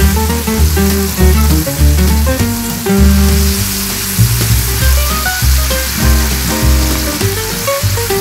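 Oil sizzling in a stainless steel skillet as dried silver fish are stirred through sautéed tomatoes and onions with a wooden spatula. Background music with a steady bass line plays throughout and is louder than the frying.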